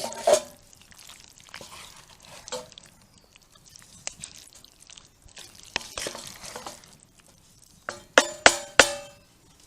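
A metal utensil scraping and clinking in a metal cooking pot, then three sharp ringing taps on the pot near the end, like a spoon knocked against its rim.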